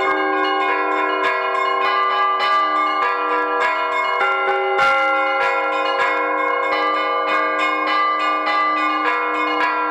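Church bells ringing in the Russian style, several bells of different pitch struck in quick succession, several strikes a second, their tones ringing on over one another. A single dull thump comes about halfway through.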